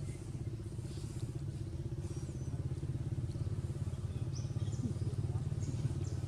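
A motor engine running steadily with a low, evenly pulsing rumble, with a few short high chirps in the second half.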